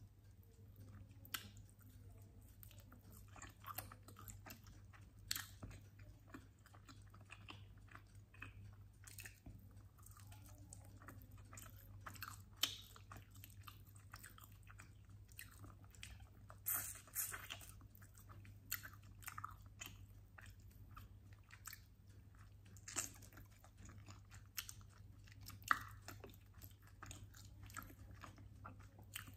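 Chewing and biting into chicken wings: steady chewing with scattered sharp crunches and clicks, a few much louder than the rest. A low steady hum sits underneath.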